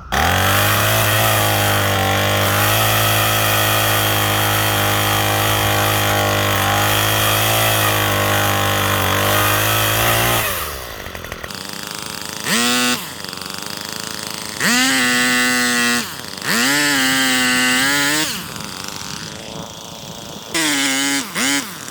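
A power saw runs steadily at full speed for about ten seconds, then cuts off. It is then run in four short trigger bursts that each wind up in pitch and back down, stopping fully between them.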